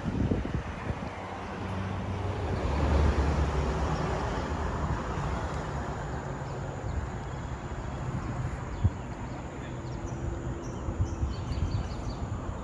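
Outdoor ambience: a steady low rumble that swells about three seconds in, with short bird chirps near the end.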